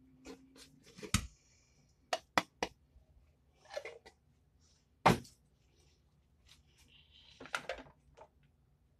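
Scattered sharp knocks and clicks from handling a tin can and a ceramic slow cooker crock in a stainless-steel sink, with a quick group of three taps a couple of seconds in. The loudest knock comes about five seconds in.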